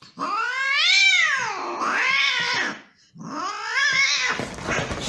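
A cat yowling twice: two long, drawn-out meows, each rising and then falling in pitch. The second call turns rough near its end.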